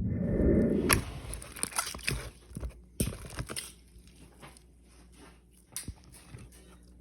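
Dried-out slime, hard as a rock, being handled and broken apart. A loud low rumble of handling noise in the first second gives way to scattered crackles and crunches that thin out and fade.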